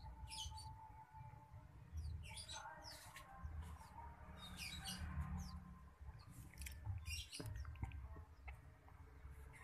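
Newborn otter pups squeaking in short, high-pitched chirps, in several bouts a second or two apart, over a low rumble.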